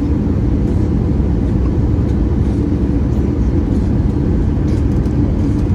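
Steady low rumble of an Airbus A320-214's CFM56 engines and the rushing air, heard from inside the passenger cabin.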